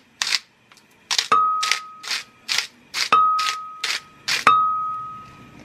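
Pepper being shaken from its container into a glass blender jar: short rasping shakes about twice a second. Three sharp knocks against the glass, about a second, three seconds and four and a half seconds in, each leave the jar ringing with a clear fading ding.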